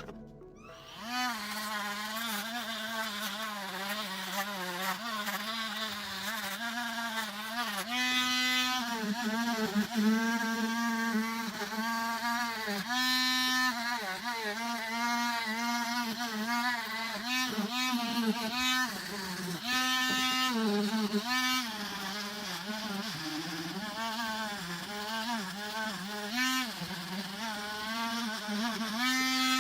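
Small high-speed electric motor tool buzzing continuously, its pitch dipping and recovering as it is pressed against and lifted off the work, with louder stretches every few seconds.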